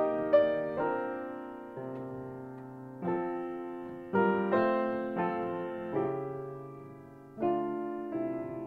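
Grand piano played solo in a slow, gentle style: chords struck about once a second or less, each left to ring and fade before the next.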